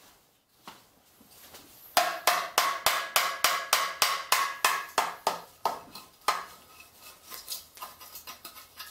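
Muffler on a Kohler K-series engine clanking with a ringing metallic tone as it is worked loose by hand, its exhaust bolt already cut off. About two seconds in come sharp knocks at about three a second for some four seconds, then lighter, quicker rattling.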